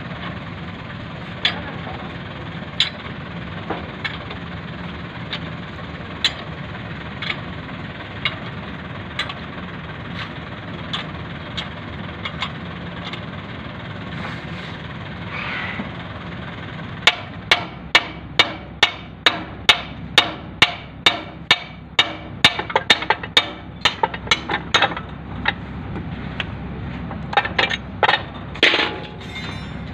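Sharp metal-on-metal blows, like a hammer on steel tractor front-axle parts. At first they come as single strikes a second or so apart. About halfway through they become a quick run of three or four blows a second, and a few more follow near the end.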